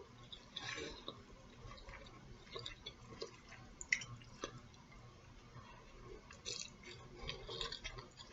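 Faint, irregular wet mouth clicks and smacks of someone chewing food, with a few small sharp ticks.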